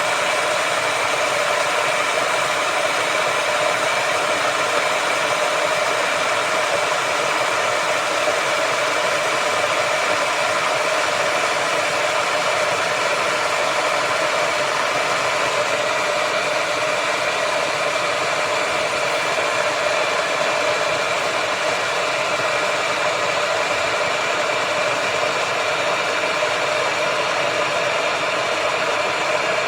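Peach Street 1500 W borosilicate-glass electric kettle at a full rolling boil: a steady, loud rushing of boiling water.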